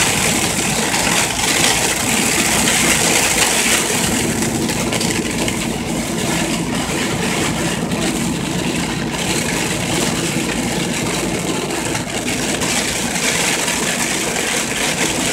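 Sleet and ice pellets hitting the windshield and cab of a moving vehicle, loud, a dense rattling hiss over the steady engine and road noise inside the cab.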